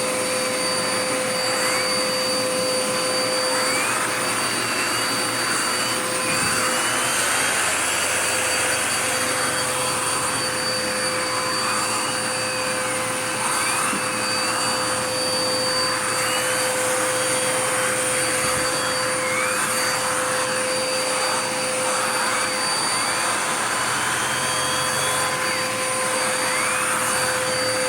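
Dirt Devil Power Max vacuum cleaner running steadily, fitted with its air-driven turbo brush attachment. A steady whine sits under a whistle that rises and dips every second or two as the nozzle is worked over the surface.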